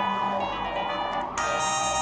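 Samsung SGH-A800 mobile phone ringtone playing an electronic melody of several notes at once. About two-thirds of the way in, a brighter, buzzier voice comes in abruptly.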